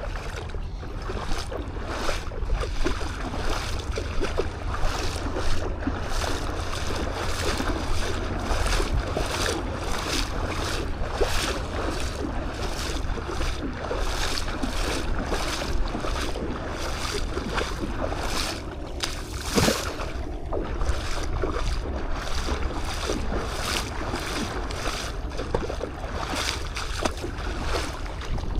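Footsteps on beach sand at a steady walking pace, about two a second, over a low wind rumble on the microphone and the wash of surf.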